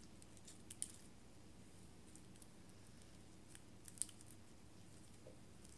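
Faint sticky clicks of still-tacky clear slime being kneaded and pulled apart between the hands, with a few sharper ones about a second in and around four seconds in; otherwise near silence.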